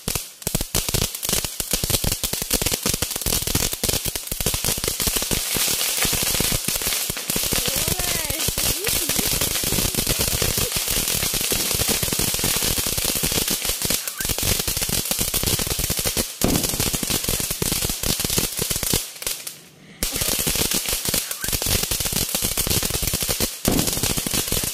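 Handheld crackling fireworks spraying sparks, giving a dense, continuous crackle of rapid small pops, with a brief lull about three-quarters of the way through before the crackling resumes.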